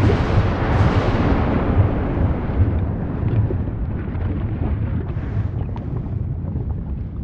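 Volcanic eruption: a sudden blast at the start whose hissing roar fades over about three seconds, over a continuous deep rumble, with scattered sharp cracks later on.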